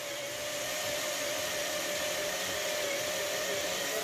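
Handheld power drill running steadily as its bit bores a hole through a wooden tabletop: a constant motor whir with a steady mid-pitched whine.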